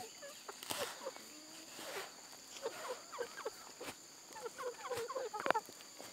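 Chickens clucking softly in short low calls, in a cluster about three seconds in and again near five seconds, over a steady high insect drone. A few dry ticks and knocks come in between, the loudest about five and a half seconds in.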